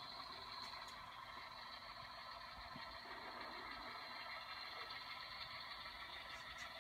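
Faint, steady diesel engine sound from the DCC sound decoders of model diesel locomotives as the consist moves off under throttle.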